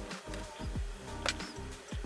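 Background music with a steady beat: held electronic tones over a low thud about twice a second.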